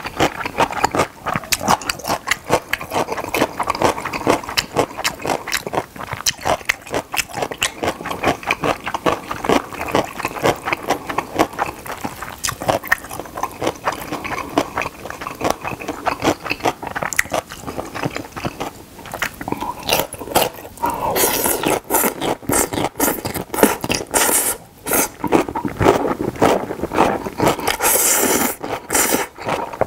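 Close-miked eating of jjapagetti black-bean noodles and pickled radish: steady wet chewing with mouth clicks and crunching. Noisy noodle slurps come a few seconds past the middle and again near the end.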